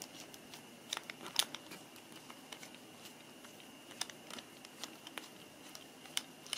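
Faint clicks and light scraping of a screwdriver turning a small retainer screw into the steel receiver of an SMK QB78DL air rifle, with a few sharper ticks scattered through.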